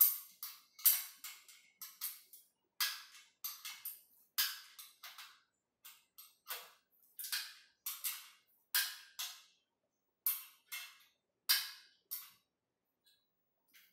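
Steel spanner clicking and clinking against a bolt and the treadmill's steel frame as the bolt is turned, a string of irregular sharp metallic clicks, each with a short ring.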